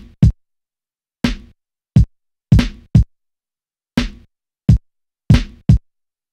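A kick-and-snare drum loop played from a Native Instruments Maschine Studio: sharp single drum hits with dead silence between them, in an uneven, loping rhythm. The one-bar pattern comes round about twice while the swing amount is being turned up.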